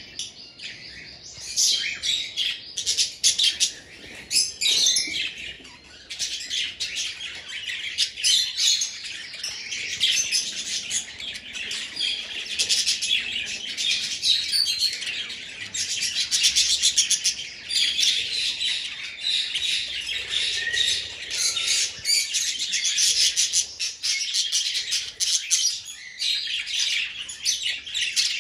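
A flock of budgerigars chattering and warbling: a dense stream of rapid, high chirps, sparser in the first few seconds and then continuous.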